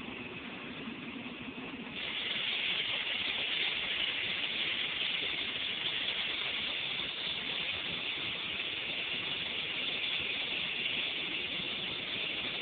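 Airliner cabin noise: a steady rush of engines and airflow, which jumps louder and hissier about two seconds in and then holds steady.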